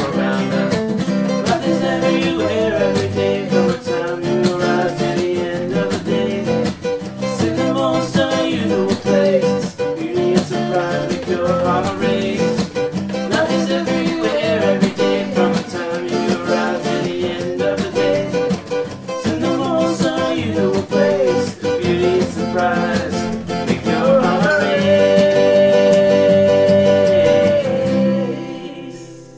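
Instrumental music of a children's song with strummed acoustic guitar, its chords changing steadily, then settling about 25 seconds in on one long held chord that fades out near the end.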